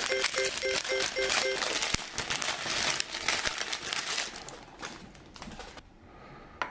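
Metallic foil blind bag crinkling as it is held up, squeezed and turned in the hands, with a dense irregular crackle that fades away after about four and a half seconds.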